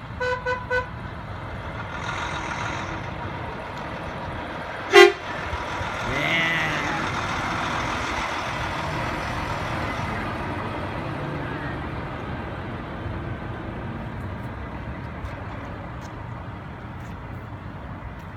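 Semi truck's horn sounding a salute: four quick short toots at the start, then one loud short blast about five seconds in. The tractor-trailer's engine and tyres then pass close by and slowly fade away.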